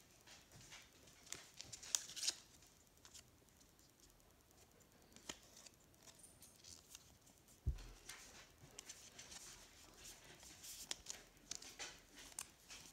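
Pokémon trading cards being flipped through by hand: faint slides and light flicks of card stock against card, with one dull thump a little past halfway.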